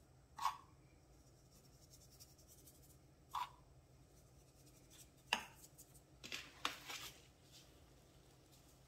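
Faint kitchen handling sounds while flour is dusted from a small metal sieve over raw dough on a baking sheet: a few light, separate taps, then a short run of scratchy rubs near the end.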